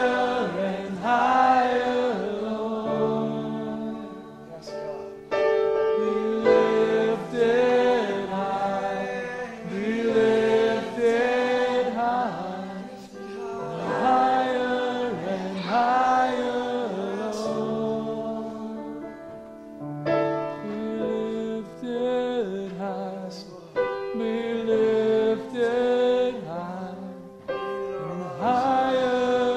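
A congregation singing a worship song together in phrases a few seconds long, over steady held chords from an accompanying instrument.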